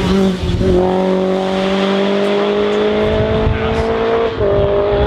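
Racing car engine accelerating hard, its note climbing steadily. It drops sharply at an upshift about half a second in and again about four seconds in.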